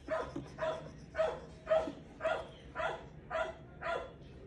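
A dog barking over and over, eight barks at an even pace of about two a second.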